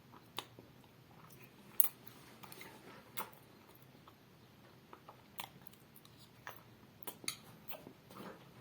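Eating a mouthful of peanut butter close to the microphone: sparse, sticky mouth clicks and smacks, scattered and irregular, with one louder click about two seconds in.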